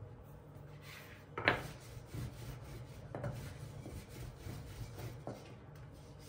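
Long, thin wooden rolling pin rolling yufka dough out on a floured silicone mat: a soft, continuous rubbing with a few light knocks, the sharpest about one and a half seconds in.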